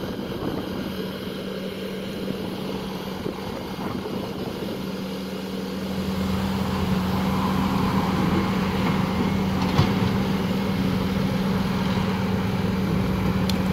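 Bobcat skid-steer loader's diesel engine running steadily, getting louder about six seconds in as the throttle comes up, with a short sharp knock a few seconds later.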